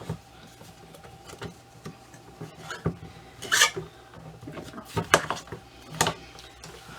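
Small hard pieces being handled and set down: scattered clicks and knocks, with a short rasping scrape about three and a half seconds in.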